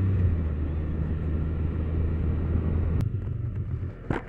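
Can-Am Spyder engine running steadily under way, with road and wind noise, easing off about three and a half seconds in as the machine slows for a turn. A short sharp sound comes near the end.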